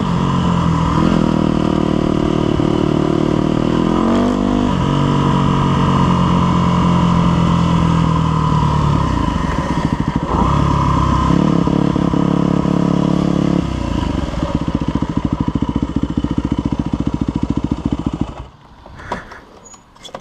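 A 2001 Yamaha WR250F's 250 cc four-stroke single-cylinder engine running under way, its revs rising and falling with the throttle and the gear changes. About fourteen seconds in it drops to a slower, even beat off the throttle, and near the end it cuts out suddenly.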